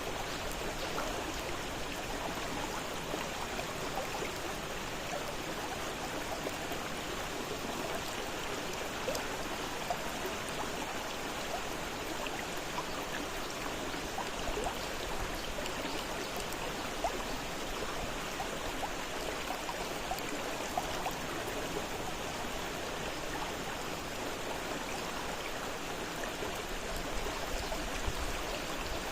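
Fast-flowing river water rushing and splashing steadily, a continuous even wash of sound with small splashes throughout.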